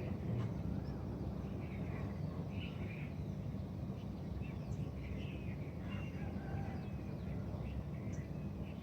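Several birds chirping and calling outdoors, with short twittering notes and quick up-and-down whistles scattered throughout, over a steady low background rumble.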